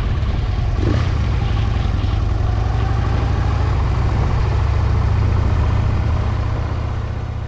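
Motorcycle engine running at low speed, a steady low rumble that fades out near the end.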